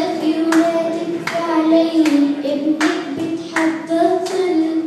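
A young girl singing in Arabic, holding long notes of the melody, with hand claps keeping a steady beat about every three-quarters of a second.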